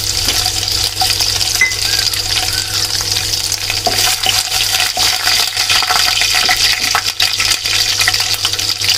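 Diced coconut pieces and mustard seeds sizzling and crackling in hot oil in a frying pan, with many small pops. A wooden spatula stirs and scrapes through them from about four seconds in.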